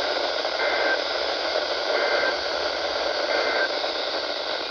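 Weather radio receiver hiss with three short two-tone data bursts about 1.3 s apart: the EAS/SAME end-of-message (NNNN) signal that closes a NOAA Weather Radio warning broadcast.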